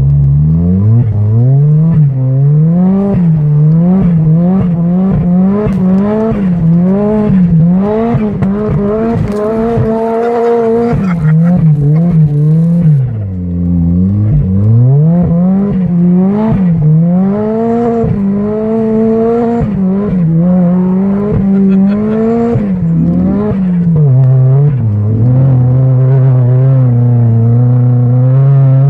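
Turbocharged Mazda MX-5's four-cylinder engine revving hard, rising and falling every second or two as the throttle is worked, with turbo flutter chattering when the throttle is lifted. Around the middle the revs drop low and then climb again.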